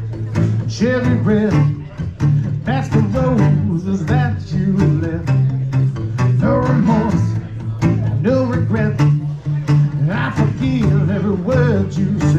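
Live cover-band music: guitar with steady bass notes under a melody line that bends up and down throughout.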